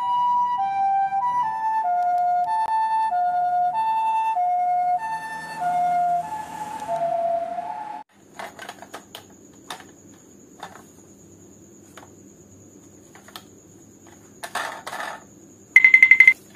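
Two-tone hi-lo ambulance siren. A high note and a low note alternate about every half second, and the pitch slowly drops as if the vehicle were passing by, until the siren cuts off about eight seconds in. Faint clicks follow, then a brief loud high beep just before the end.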